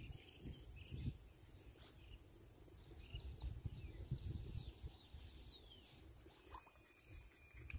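Faint birds calling: short high whistled notes and quick downward-sliding chirps, over a low rumble.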